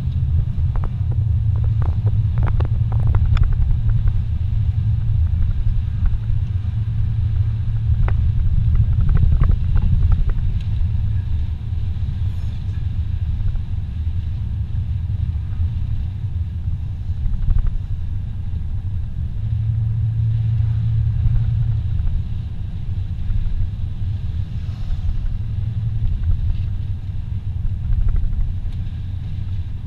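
Car driving on a paved road, heard from inside the cabin: a steady low rumble of engine and tyre noise, with a few faint clicks in the first ten seconds.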